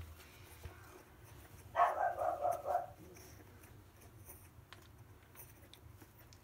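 A puppy whimpering, one pitched pulsing run of about a second starting near two seconds in.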